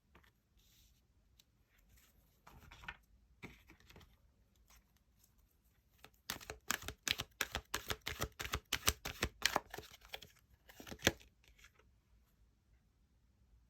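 Tarot cards being shuffled and handled: light rustling, then a quick run of card clicks from about six seconds in, and one sharper snap near eleven seconds.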